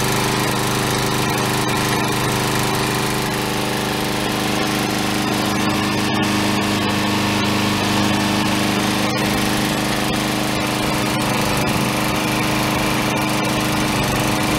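Troy-Bilt TB350-XP 21-inch mower's 7.75 HP Briggs & Stratton OHV engine running at a steady speed.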